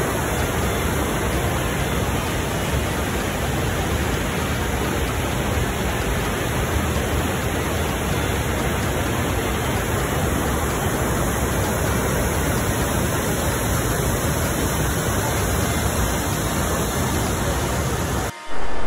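Steady rushing roar of a boulder-strewn mountain river in white-water flow, breaking off abruptly just before the end.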